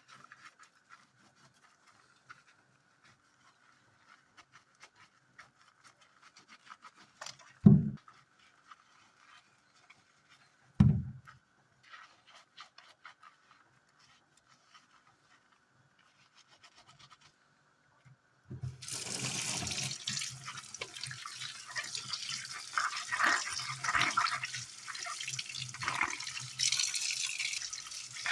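Two heavy knocks about three seconds apart, then, past the middle, a steady rush of water running from a kitchen tap.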